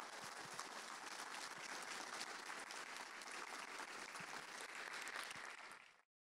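Audience applauding, a dense steady clapping that cuts off suddenly near the end.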